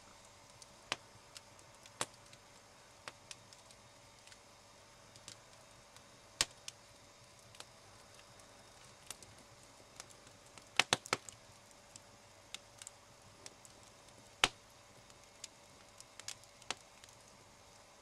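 Wood campfire crackling: sharp, irregular pops and snaps over a quiet background, with a quick cluster of loud ones about eleven seconds in.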